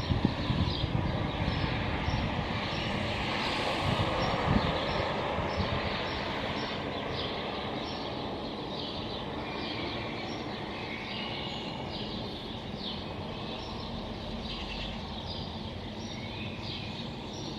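Small birds chirping, short high notes repeated about twice a second, over a steady bed of city traffic noise. A vehicle passes in the first few seconds, swelling and then fading.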